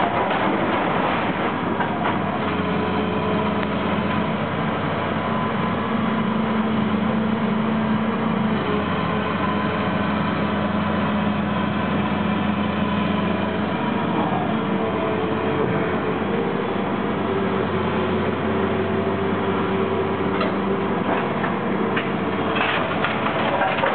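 Diesel engine of a Cat tracked demolition excavator running steadily with a constant mechanical din. A deep engine drone is strong through the first half and eases off about halfway through.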